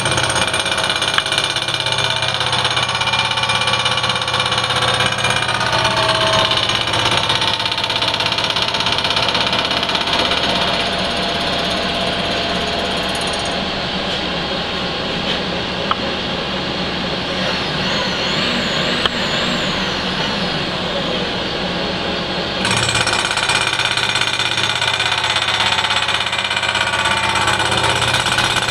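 Vertical milling machine's 1.5-inch end mill cutting across the cast-iron flange ears of a Dodge Cummins exhaust manifold, taking a 20-thousandths skim cut under power feed: a loud, steady, rattling cutting noise over the running spindle. The sound changes twice, about halfway through and again near 23 s, as the cut moves along the flange.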